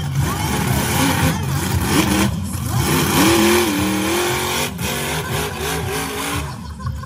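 Monster truck engine revving hard. Its pitch climbs about three seconds in and then rises and falls as the throttle is worked, easing off near the end.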